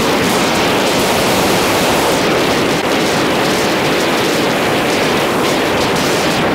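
Steady wind rush over a helmet-mounted camera's microphone on a motorcycle at riding speed, with no distinct engine note standing out.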